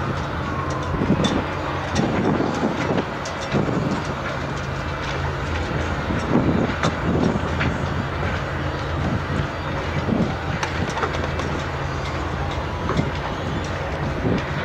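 Tugboat's diesel engine running steadily under load as it pushes against the freighter's hull, a constant low drone with irregular knocks and rattles over it.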